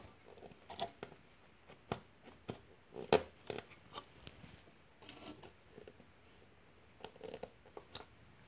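Light taps and scrapes of stand-up cardboard nativity figures being handled and set into place on a card display: a scatter of short clicks, the sharpest about three seconds in, and a small cluster near the end.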